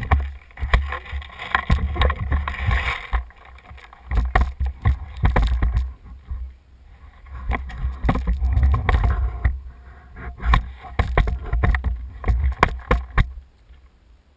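Wind and handling rumble on a head-mounted camera's microphone, with many sharp clicks and knocks scattered through; it dies down about a second before the end.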